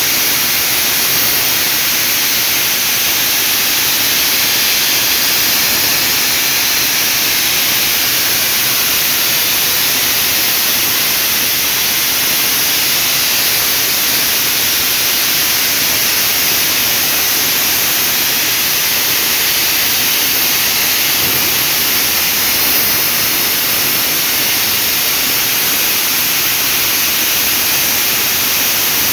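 Sri Lanka Railways B2B class steam locomotive No. 213 standing in steam, its safety valves blowing off from the top of the boiler: a loud, steady hiss that does not change, the sign of a boiler at full working pressure.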